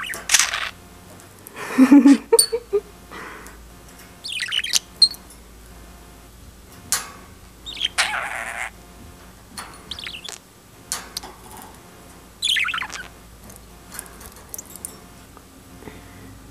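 Budgerigar giving short, quick chirps one after another, among sharp clicks and a louder knock about two seconds in from the cage and its toys being handled.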